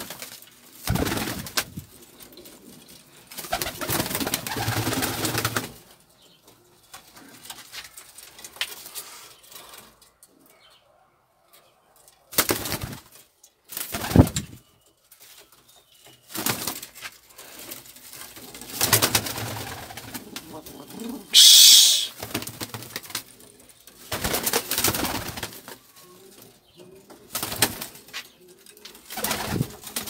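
Domestic pigeons cooing, with short bursts of wing flapping every few seconds as birds flutter on and off the perches.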